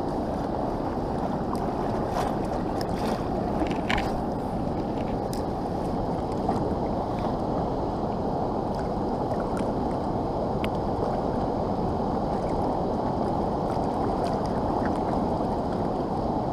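Steady rush of fast, high river current, with a few faint ticks scattered through it.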